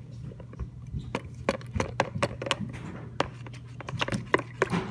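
Metal spoon stirring a wet peanut-butter-and-jelly mixture in a plastic tub, clicking and scraping against the sides and bottom in irregular taps, several a second.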